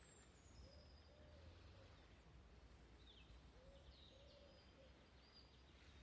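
Faint woodland birdsong: thin high whistles and short falling notes from small birds, with a low call repeated in two short phrases.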